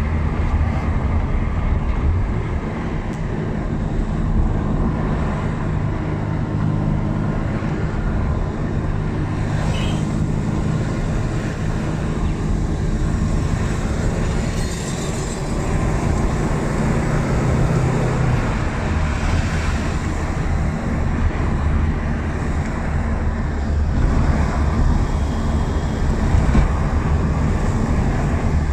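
A car's engine hum and tyre noise on wet asphalt, heard from inside the moving car as a steady low drone.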